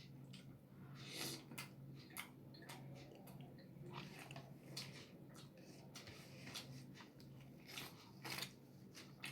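Close-miked eating sounds of roti and tadka being chewed: irregular mouth clicks and wet smacks, with a steady low hum underneath.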